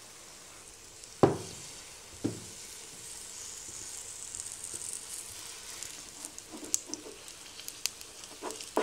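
Chicken cutlet batter shallow-frying in a little oil in a non-stick frying pan: a soft sizzle that builds, with small pops and crackles toward the end. Near the start, two sharp knocks about a second apart from the spoon against the pan as the batter is spread.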